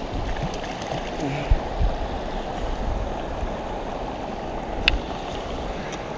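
Steady rush of a shallow river's current over rocks, with a few low knocks from gear being handled and one sharp click about five seconds in.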